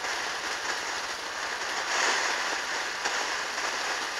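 Ground fountain firework spraying sparks: a steady hissing rush with a few faint crackles, swelling louder about two seconds in.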